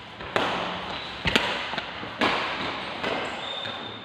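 Badminton rally: rackets striking the shuttlecock three times, about a second apart, each sharp hit followed by echo that fades.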